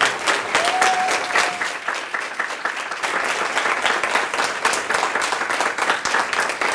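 Room full of audience members applauding steadily with dense, fast clapping. A short held tone sounds over it about half a second in.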